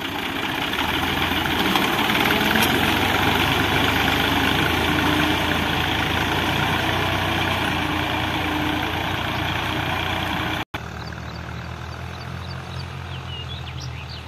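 Ghazi tractor's diesel engine running steadily under load as it pulls a mounted disc plough through dry soil, loud and close at first. About ten and a half seconds in the sound breaks off abruptly and resumes fainter, the tractor now heard from further away.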